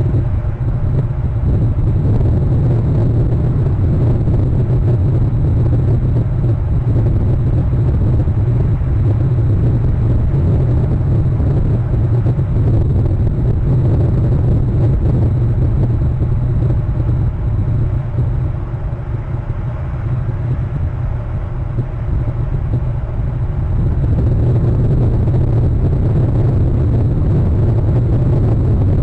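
Steady low rumble of wind buffeting the outdoor nest camera's microphone, easing slightly for a few seconds past the middle.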